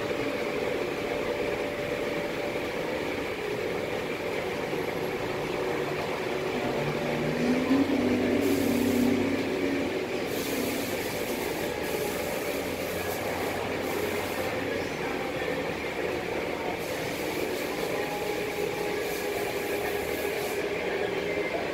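Automatic tunnel car wash running: a steady hum of pumps and motors, with high spray hiss cutting in and out through the second half as the polish-wax arch foams a car.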